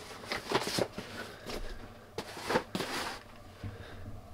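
Handling noises: a few short rustles and light knocks as boxes and small packages are moved about.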